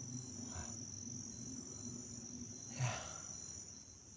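Crickets trilling steadily at a single high pitch, with a faint low hum underneath and a soft knock about three seconds in.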